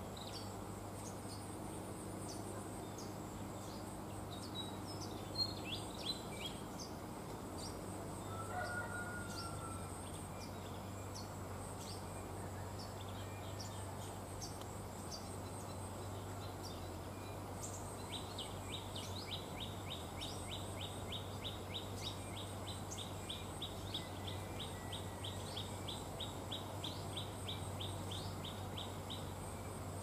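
Small birds chirping and calling with short high notes. About two-thirds of the way in, one bird starts a rapid, evenly paced series of high ticking notes, about three or four a second, which stops shortly before the end. A faint steady low hum lies under it all.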